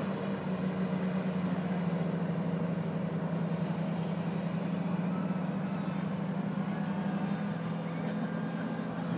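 A steady low engine hum, running at an even speed without rising or falling.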